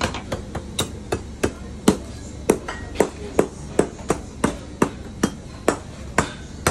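A large kitchen knife knocking repeatedly against the hard baked crust over a whole fish, cracking it open: a steady run of sharp knocks, about two to three a second.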